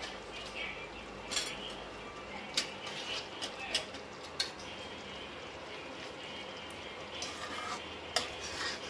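A pan of thick pav bhaji simmering on low heat, with a faint hiss and scattered sharp pops and clicks; a little after 8 seconds a spoon clinks against the pan as stirring starts.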